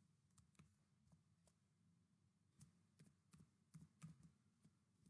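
Faint computer keyboard typing: scattered short key clicks, most bunched between about two and a half and four and a half seconds in, over near silence.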